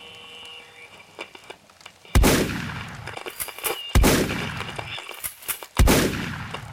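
Three heavy cinematic boom hits, title-card impact sound effects, about two seconds apart, each struck hard and dying away over a second or more.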